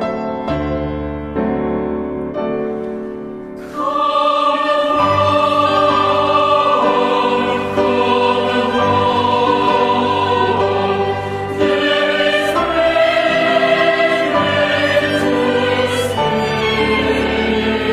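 Music: a few seconds of solo piano, then about four seconds in a choir enters, singing sustained lines over the accompaniment.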